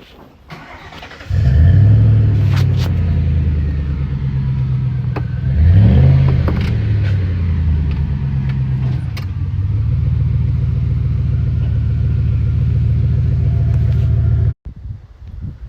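Ford 5.4 3V V8 of a 2005 F-150, cammed, running: it comes in sharply just over a second in, revs up and back down once in the middle, then idles steadily until it cuts off suddenly near the end. The engine has blown head gaskets and a knock that the owner had hoped was a flex plate knock.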